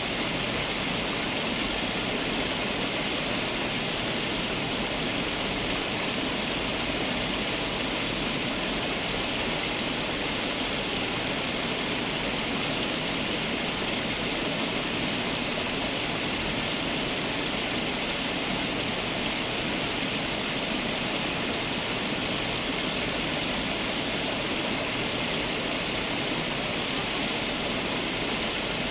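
Fountain water falling and splashing in a steady, unbroken rush.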